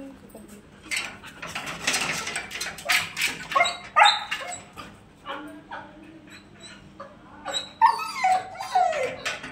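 Siberian husky whining and yipping in short, loud calls with a few barks, ending in falling whines: separation distress after her people have gone away from her.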